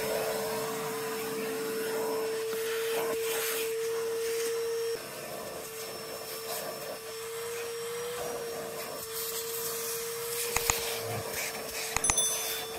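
Vacuum cleaner running steadily, a constant whine over rushing air as the hose sucks, getting somewhat quieter about five seconds in. A few sharp clicks sound near the end.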